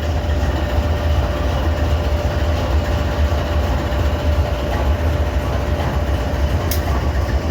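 GE Dash 9-44CW diesel-electric locomotive idling, a steady low rumble with a faint steady whine over it.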